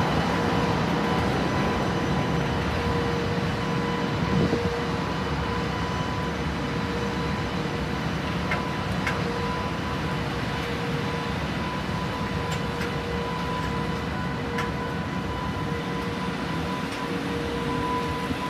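Container freight train wagons rolling slowly along the rails: a steady rumble of wheels on track that slowly fades, with a steady high hum and a few faint clicks.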